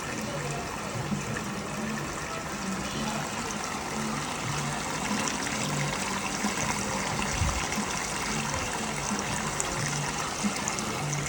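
Steady trickle of water circulating in a fish spa foot tank.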